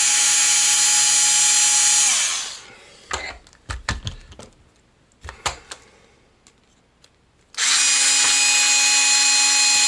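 Electric screwdriver running with a steady whine as it drives a screw into an RC car chassis, winding down about two seconds in. Then come a few light clicks and knocks of small parts being handled, and the screwdriver runs again for the last couple of seconds.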